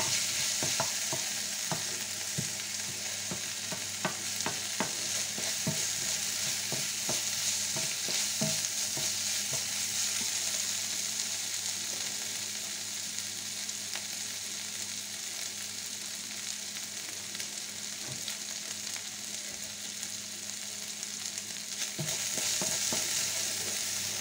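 Diced lardons and onion sizzling steadily in a non-stick frying pan as they brown, nearly done. A wooden spoon stirs and scrapes against the pan through the first several seconds and again near the end.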